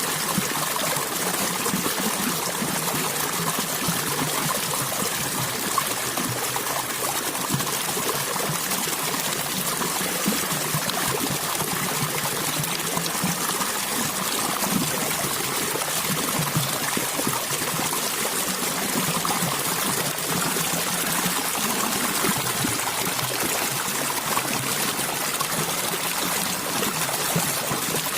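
Water flowing and trickling steadily over rocks in a small stream.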